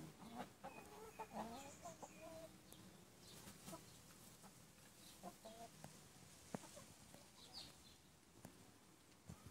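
Chickens clucking quietly as they forage, a run of short soft calls in the first few seconds and a few more around the middle.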